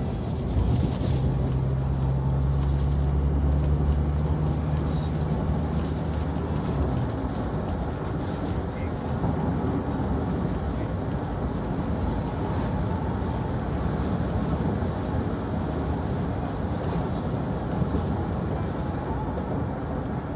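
Inside a moving vehicle: a steady rumble of engine and road noise, with a steady low drone over the first seven seconds or so.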